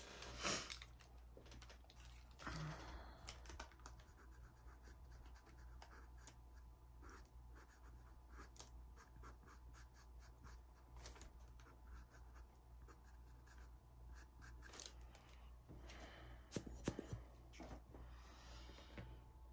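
Faint scratching of a pastel pencil drawing short strokes on Pastelmat card, many quick strokes with a louder cluster near the end.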